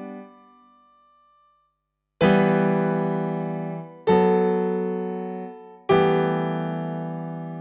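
Solo piano playing slow chords: a chord fades out in the first half-second, then after a short silence three chords are struck about two seconds apart, each left to ring and fade.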